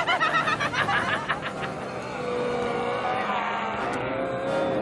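A character's high-pitched cackling laugh, a quick run of short notes that dies away about a second and a half in. Held tones of background music follow.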